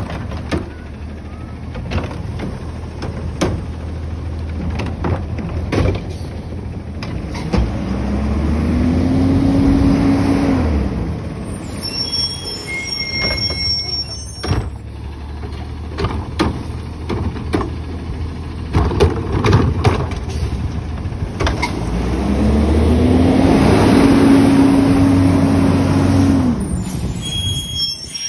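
Garbage truck engine running, revved up twice, each time climbing to a held high pitch for a few seconds and then dropping back, as the hydraulics work the Curotto-Can cart arm. Knocks and metal bangs from the arm and carts sound between and during the revs.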